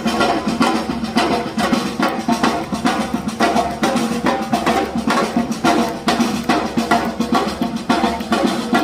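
Drum-led music with a steady, fast beat, dense drum and percussion strikes over a few held pitched notes.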